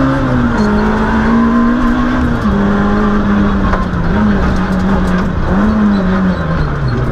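Citroën Saxo Group A6 rally car's 1.6-litre four-cylinder engine running hard at high revs, heard from inside the cabin over tyre and road noise. The pitch steps down about two and a half seconds in, rises briefly twice later, and dips near the end.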